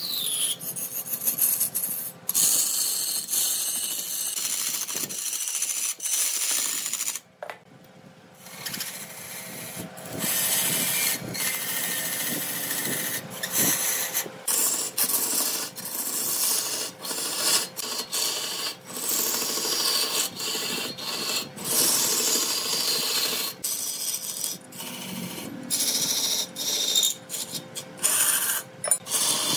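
Wood spinning on a lathe being worked with a turning tool: a steady rasping scrape that breaks off and starts again abruptly many times, with a quieter stretch about six seconds in. A faint steady hum runs underneath.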